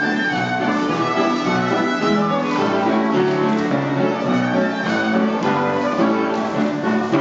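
Live Scottish country dance music: a fiddle playing the tune over piano accompaniment.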